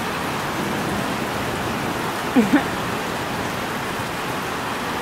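Heavy rain falling steadily on a porch roof and the yard around it, an even, unbroken rush of noise. A brief vocal sound cuts in about two and a half seconds in.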